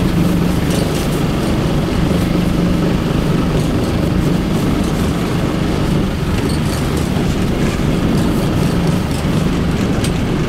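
A boat's engine running with a steady low hum, under a constant wash of wind and water noise.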